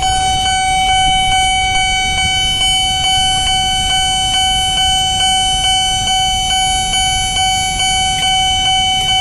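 Railway level-crossing warning alarm sounding: one steady electronic tone beating about twice a second, over the low rumble of idling road traffic held at the closed crossing.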